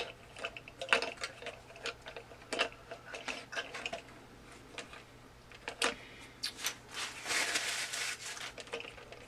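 Small plastic parts of a Lemax Eerie Go Round mechanism being handled and fitted back together: scattered light clicks and knocks, with a stretch of rubbing about seven seconds in.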